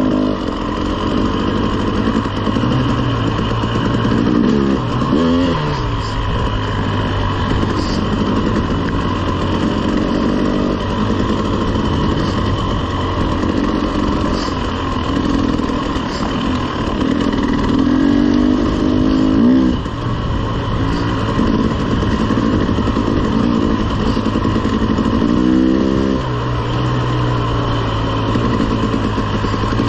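Dirt bike engine being ridden, pitch rising and falling with the throttle, with sharp revs about 5, 19 and 25 seconds in.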